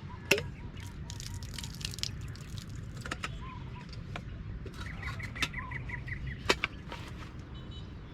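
Bird calls: short runs of quick, evenly repeated notes, one near the start and a higher, faster one about five seconds in, over a steady low rumble, with scattered sharp clicks and knocks.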